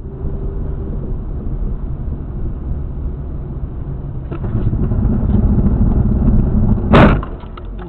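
Car engine and road rumble picked up inside the cabin by a dashcam, growing louder about halfway through, then one sharp loud bang about seven seconds in: the impact of a collision.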